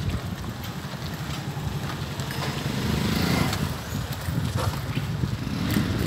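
Bicycle ridden over rough, stony dirt ground: a low, uneven rumble with scattered small rattles and knocks.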